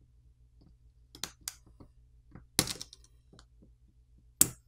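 Sharp little plastic clicks and snaps as a plastic pry pick pops the Huawei P40 Pro's flex-cable connectors off the logic board. A few light clicks come first, with two louder snaps about halfway through and near the end.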